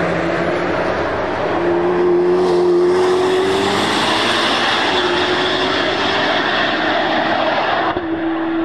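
Corvette C8 ZR1 prototype's engine running hard at high revs on a race track, its note rising in pitch as it pulls through the gears. Near the end the sound changes abruptly to a steadier engine note.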